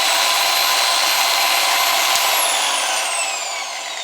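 Rupes LHR75E electric random orbital polisher running with a steady whine. About two seconds in there is a click and the motor winds down, its pitch falling as it coasts to a stop.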